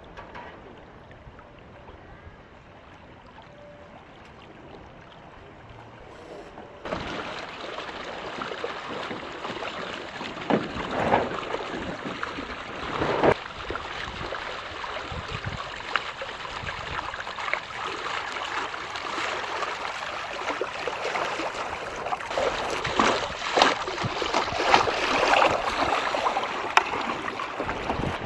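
Water rushing and splashing along the hull of a small sailing boat under way, with wind on the microphone. The sound jumps suddenly louder about seven seconds in, with occasional sharper splashes after that.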